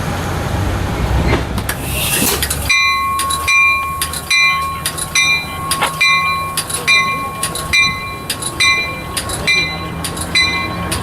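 A train rumbles at first; about three seconds in, a bell starts ringing steadily, one strike about every three-quarters of a second, over a steady high tone and the low running of the train.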